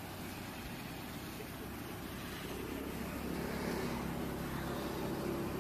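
A steady engine hum, like a motor vehicle running, growing a little louder about three seconds in.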